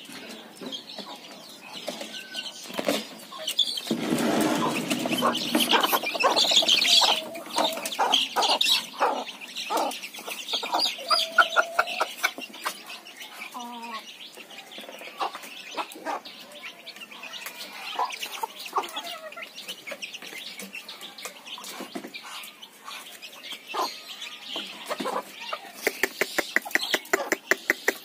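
Chickens clucking, a rooster and hens making many short scattered calls as they feed, with a louder stretch of scuffling noise about four seconds in and a quick run of ticks near the end.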